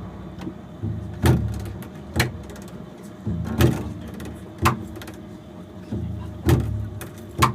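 Solo double bass played with extended technique: low notes ringing under six sharp percussive knocks on the instrument, spaced irregularly about a second apart.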